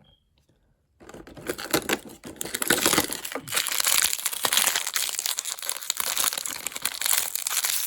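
Crinkling and rustling of a small foil blind bag being torn open and handled, a dense crackle that starts about a second in.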